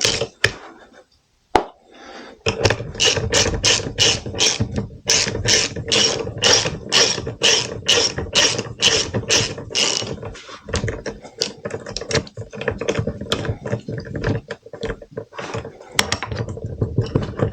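Socket ratchet clicking as it is swung back and forth to undo the motorcycle's rear brake caliper bolts. After a brief pause near the start it runs at about three clicks a second, then goes slower and uneven in the second half.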